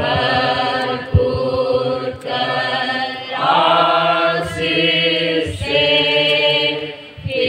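Women's voices singing a slow Hindi church hymn into microphones. The held notes come in phrases that break every second or two.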